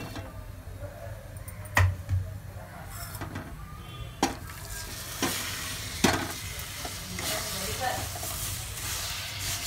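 A metal slotted spatula scrapes and knocks against an iron kadhai while stirring sugar. About four seconds in, water is poured onto the sugar, and it sizzles in the hot pan as the stirring carries on, with a sharp clack of the spatula every second or so.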